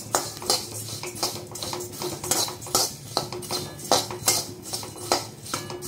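Flat metal spatula scraping and knocking against a metal wok as flattened rice (chire) is stirred while it roasts, the dry flakes rustling with each stroke. The strokes come irregularly, a few a second; constant stirring keeps the flakes from scorching on the bottom.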